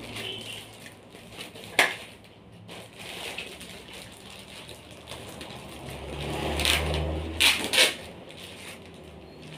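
Plastic packaging crinkling and rustling as it is handled, with a sharp crackle about two seconds in and a few louder crackles around seven to eight seconds in.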